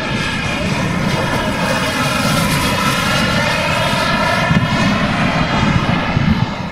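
Twin jet turbines of a large radio-controlled model A-10 Warthog flying past, a layered whine over a low rush. The whine sags slightly in pitch midway as the model goes by.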